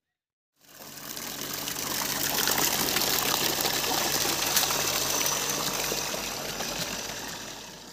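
Electric monoblock water pump at a well running, with water gushing and splashing from its outlet pipe. It is pumping again after a new foot valve was fitted. The sound begins about half a second in and fades near the end.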